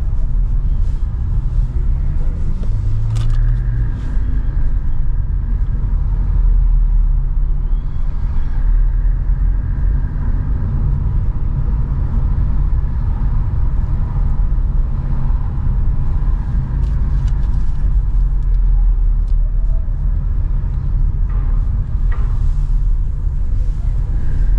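Ferrari F8 Spider's twin-turbo V8 running steadily at low revs, a continuous low rumble with no big revs.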